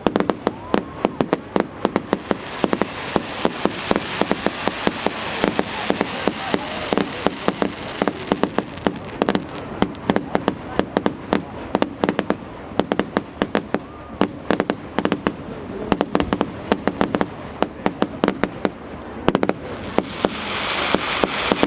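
Fireworks going off in a rapid run of sharp bangs and cracks, several a second, over a crackling hiss. Near the end the bangs thin out and a steady hissing crackle takes over.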